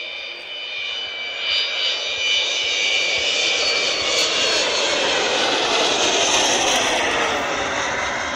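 Avro Vulcan XH558's four Rolls-Royce Olympus turbojets on a low flypast. A high whistling whine sits over the jet noise and grows louder as the bomber passes, then eases slightly near the end.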